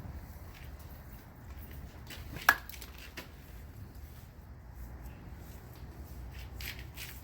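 Wet clay being handled and pressed onto a furnace wall: soft, faint squishing and handling noises, with one sharp tap about two and a half seconds in, over a low steady rumble.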